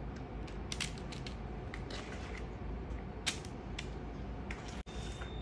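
A spoon scraping and tapping against a bowl while scooping a sticky chocolate-coated cornflake and nut mixture, heard as scattered light clicks and scrapes over a steady low hum.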